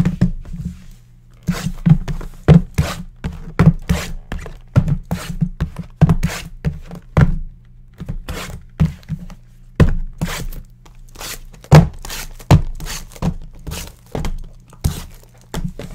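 Sealed cardboard trading-card boxes being handled and set down on a stack, a long run of dull thunks about two a second.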